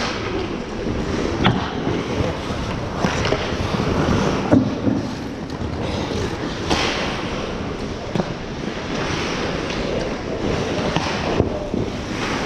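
Ice hockey play: a continuous scraping hiss of skates on the ice, with a handful of sharp clacks from sticks and puck.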